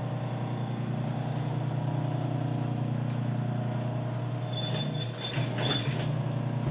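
Industrial sewing machine's motor humming steadily at idle, with the needle not stitching. Brief rustles and clicks about five seconds in as the fabric is handled under the presser foot.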